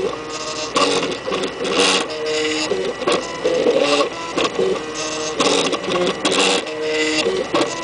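MakerBot kit 3D printer printing: its stepper motors whine in steady tones that jump to a new pitch with each move of the extruder head, broken by short bursts of harsher noise.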